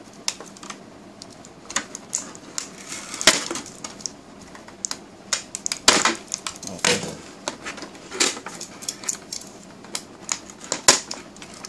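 Thin clear plastic toy packaging crinkling and crackling as it is handled and cut open, with many irregular sharp clicks and a few longer rustles.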